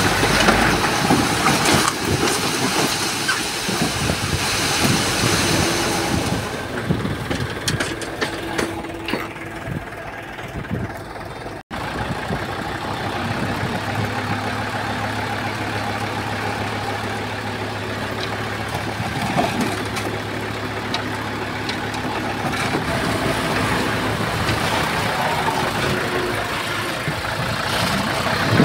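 Diesel engines of heavy earthmoving machinery running, with scattered knocks and rattles in the first third. The sound cuts out for an instant about a third of the way in, then a steadier low engine hum follows.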